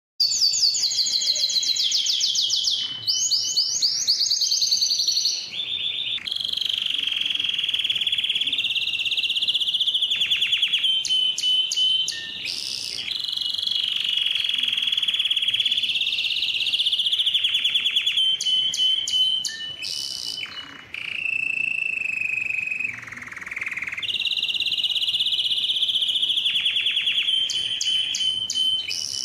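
Domestic canary singing a long, loud song of rapid trills and rolls alternating with held whistled notes, with only short breaks.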